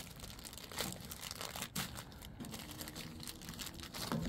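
Crinkling, rustling and scattered light clicks of hands handling small shifter bushing parts, the old bushings' side pieces and spring.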